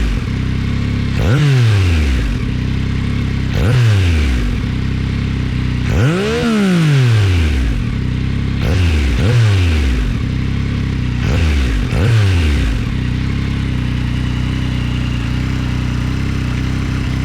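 Yamaha MT-09's three-cylinder engine through a titanium full-system Akrapovic exhaust (a BMW HP4 system), revved in about seven throttle blips, each jumping up sharply and falling back, one of them a slower swell, then settling to a steady idle for the last few seconds.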